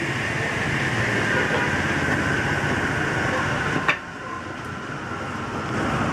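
A woodworking power tool's motor running steadily with a faint whine that sinks slowly in pitch. A sharp knock comes about four seconds in, and the noise quietens after it.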